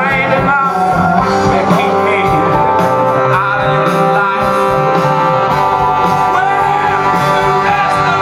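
Live rock band playing with electric guitar, while a male lead vocalist sings over it. Sustained chords run steadily throughout.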